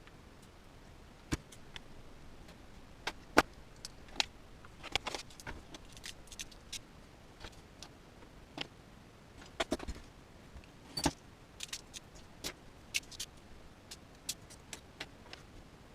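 Small plastic winch parts, screws and hardware clicking and tapping as they are handled and fitted together by hand. The light clicks and knocks come irregularly, the loudest about three and a half seconds in.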